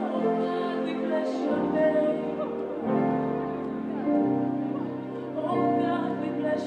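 Slow live gospel band music: sustained keyboard chords over a bass line that moves to a new note every second or so, with a woman's voice singing over it.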